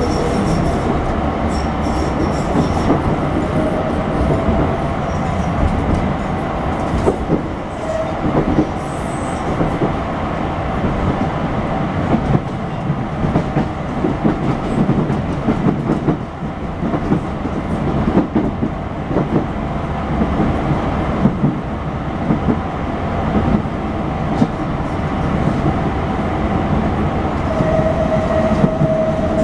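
CAF articulated electric multiple unit heard from inside the carriage while running along the line: a steady rumble with frequent wheel clicks over the rails. Near the end a short, steady wheel squeal comes in.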